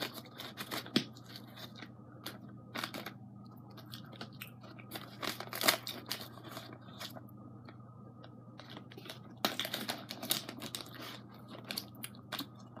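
Cotton candy being pulled apart by hand from a plastic tub: scattered soft tearing and rustling, with the plastic container crinkling now and then.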